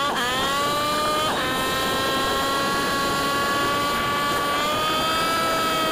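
A small motor's high, steady whine over a rushing noise, its pitch rising at the start and then shifting in small steps twice.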